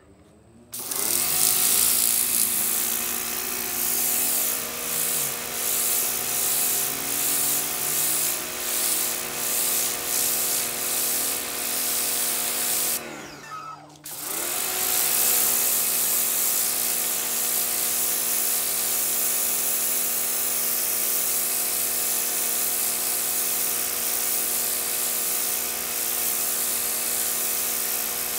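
Sun Joe SPX2688-MAX electric pressure washer running, its motor and pump giving a steady whine under the loud hiss of the high-pressure spray. About halfway through the trigger is released: the motor winds down, briefly stops, then spins back up as spraying resumes.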